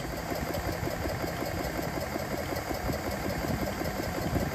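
Portable electric PCP air compressor running steadily with a rapid, even pulsing as it pumps air into a Crosman Discovery air pistol's reservoir.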